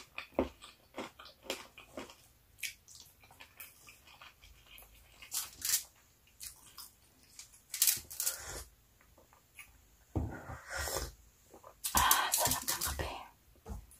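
Close mouth sounds of eating fatty pork adobo and rice: wet chewing and lip smacks in irregular bursts, with a few longer, louder bursts near the end.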